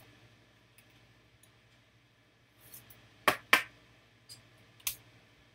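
Hard plastic trading-card holders clicking as they are handled: two sharp clicks about a quarter second apart a little past the middle, then a softer one about a second and a half later, with quiet room tone between.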